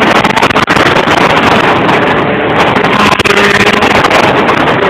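Open-wheel single-seater race car's engine running as it passes on the track, mixed with heavy wind buffeting on the microphone.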